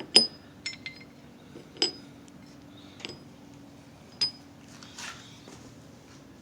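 Variator rollers being set into the metal variator pulley of a Yamaha Zuma's CVT transmission: about five small sharp clinks with a light ring, roughly a second apart, with a soft rustle of handling between them.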